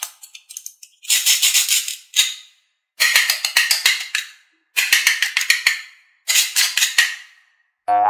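A shaker rattling in four quick bursts, each about a second long, after a short run of clicks at the start.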